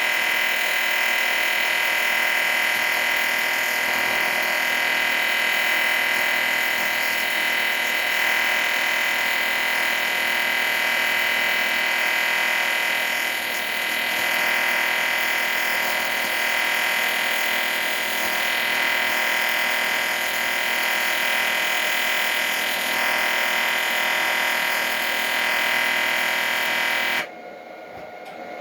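A machine running steadily, a loud hiss with several constant whining tones, that cuts off suddenly about a second before the end.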